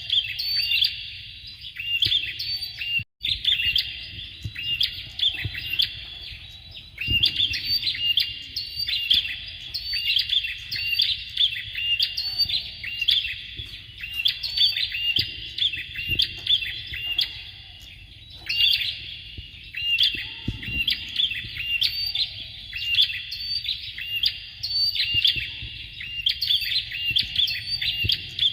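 Bar-winged prinias calling: fast runs of sharp, high chirps in bouts of several seconds, with short pauses between. The sound cuts out for an instant about three seconds in.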